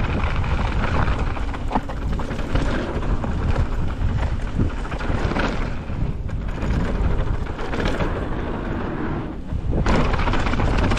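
Mountain bike descending a rough downhill trail: wind buffeting the camera microphone over a constant rumble of tyres on dirt and rock, with frequent knocks and rattles from the bike.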